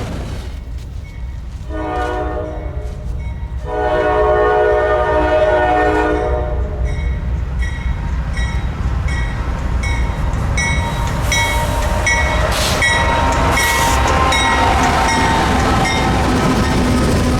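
Freight locomotive air horn sounding two long blasts over the low rumble of the train. After that a regular ringing tick about twice a second sets in while the train rumbles on.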